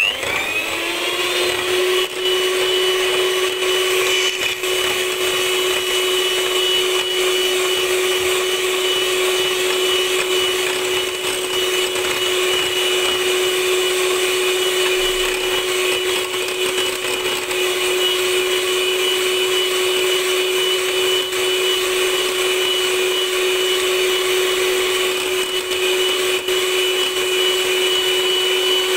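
Electric hand mixer whipping heavy cream in a bowl: the motor spins up with a rising whine at the start, then runs at a steady pitch as the beaters whip the cream.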